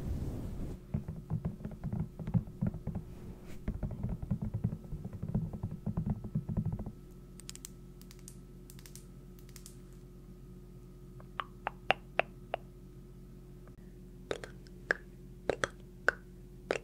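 Close-miked ASMR tapping: a rapid, dense patter of light taps for about seven seconds, then scattered single crisp taps and clicks.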